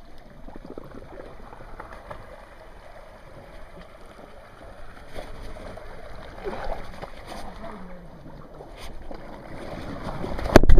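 Creek water rushing and churning through a narrow canyon, a steady noise. Near the end comes a sudden loud burst of splashing.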